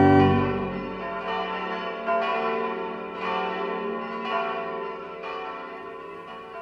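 A held organ chord ends, then church bells strike about once a second, each stroke ringing on, the whole slowly fading away.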